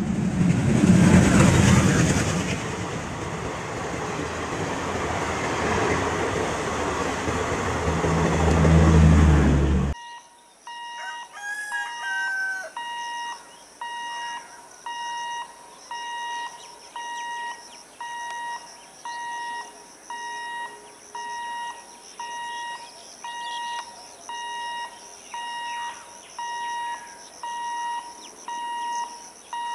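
A loud, noisy intro sound effect swells for about ten seconds and cuts off. A level-crossing warning alarm then beeps about once a second, each beep a steady high electronic tone.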